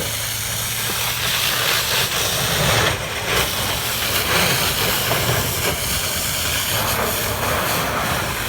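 Steady hiss of fire hoses spraying water at a fire, over the low hum of a running engine.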